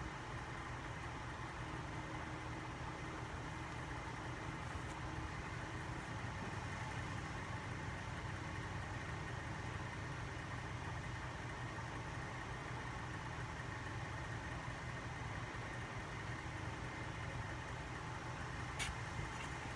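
Unmarked vintage ceiling fan coasting down after being switched off, a steady whir of the blades and motor with a few faint ticks; its long spin-down suggests the bearings are in fairly decent shape.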